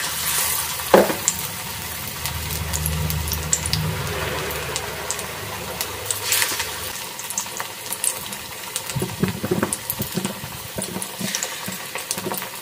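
Batter fritters deep-frying in hot oil in a steel kadai: steady sizzling with small crackles. It flares up three times as fresh batter is dropped in, with a sharp tap about a second in.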